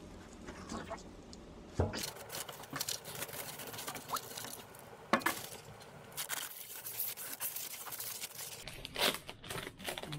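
Plastic film crinkling and foam packing scraping as a heavy plastic-wrapped device is lifted out and handled, with sharp knocks about two seconds in and about five seconds in.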